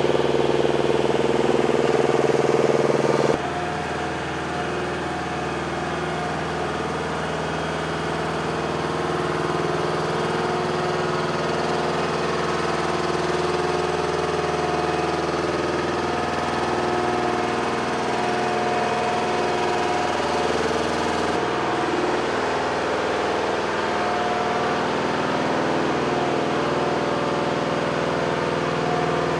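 Engine of an MHU-83 weapons-loader lift truck running steadily at idle-like speed. The sound drops suddenly and changes about three seconds in, and shifts again about twenty-one seconds in.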